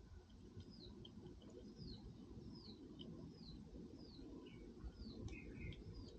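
A small bird faintly repeating a short falling chirp, about one every two-thirds of a second, over a low crackling rustle.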